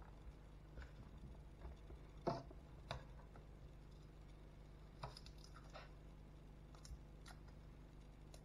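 A few faint, scattered knocks and taps of vegetables and a knife being handled on a stone worktop and a plastic chopping board, the loudest a single knock about two seconds in, over a low steady hum.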